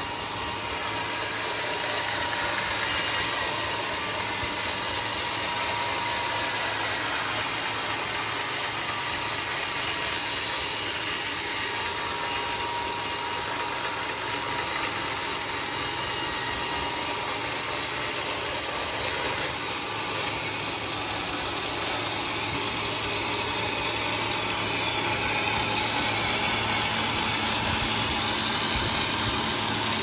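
Homemade bandsaw sawmill running, a steady mechanical noise that grows slightly louder in the last few seconds.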